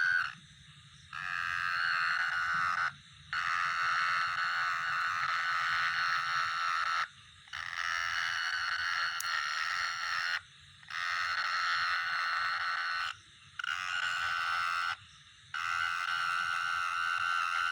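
Long, even buzzing trills from a night-calling animal, each lasting two to four seconds and repeated after short pauses.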